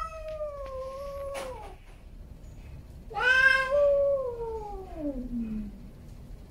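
Male domestic cat yowling in a standoff with another cat. A long drawn-out yowl trails off and drops in pitch about a second and a half in. A second long yowl starts about three seconds in, slides down into a low moan and fades out near the six-second mark.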